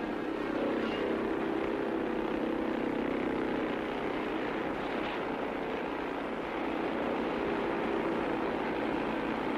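Steady engine drone, thin and muffled like an old film soundtrack. It fits the outboard motor of a towboat pulling an unpowered gyro-boat.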